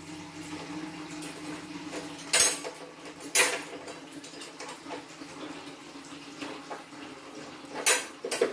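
Kitchenware clattering: four brief clinks and knocks of pots and utensils, two near the start and two near the end, over a faint steady hum.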